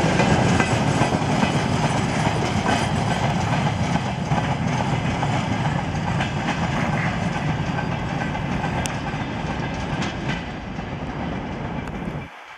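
Freight train's hopper wagons rolling past, their steel wheels running on the rails with a dense, steady rumble. The rumble slowly fades as the wagons draw away, then drops off suddenly near the end.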